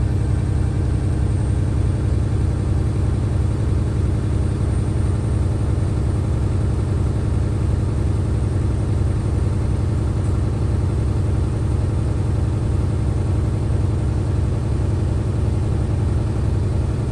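Truck diesel engine heard from inside the cab, running steadily at a fast idle of about 1000 to 1500 rpm to build air-brake pressure as the air tanks fill toward full.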